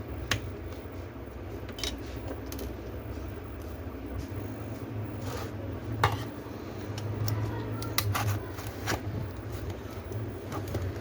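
Scattered sharp clicks and taps of small tools and laptop parts being handled during disassembly, the sharpest about a third of a second in, about six seconds in and about eight seconds in, over a steady low hum.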